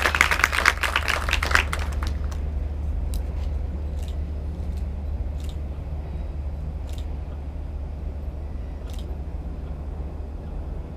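Audience applause fading out over about the first two seconds, then a lull filled by a steady low rumble with a few faint, scattered clicks.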